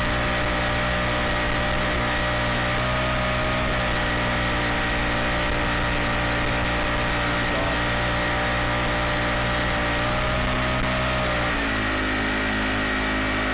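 Honda 35cc mini four-stroke engine running steadily, driving a kayak's drop-in propeller drive at speed, heard from close behind the engine. About twelve seconds in, its pitch steps down and holds lower as the engine slows.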